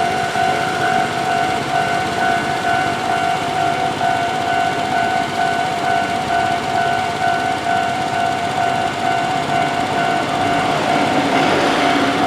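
Japanese railway level-crossing warning bell ringing steadily. Near the end the noise of an approaching KiHa 11 diesel railcar rises beneath it.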